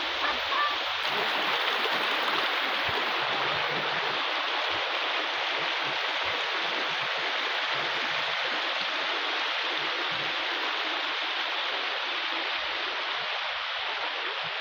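Shallow river water rushing over a smooth rock slab: a steady, even hiss of fast-flowing water that holds the same level throughout.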